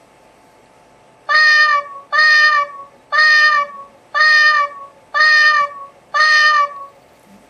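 A cat-clock app's alarm sounding through an iPhone's speaker: a recorded cat meow played six times, about once a second, each meow identical and dropping in pitch at its end. It stops after the last meow, as the alarm is touched off.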